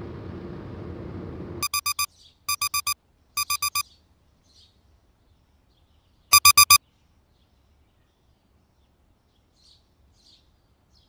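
Sony digital alarm clock beeping in quick groups of four: three groups in a row, then after a pause of a couple of seconds a fourth. Before the beeping, a car's steady road noise cuts off abruptly.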